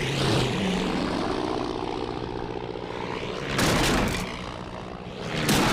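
Cartoon propeller plane's engine droning steadily as it performs stunts, with two louder rushing surges, about three and a half and five and a half seconds in, as it swoops past.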